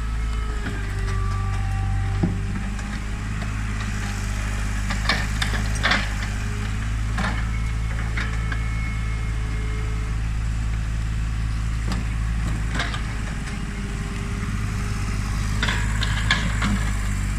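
An old excavator's diesel engine running steadily, with scattered knocks and clanks from the bucket and arm working soil.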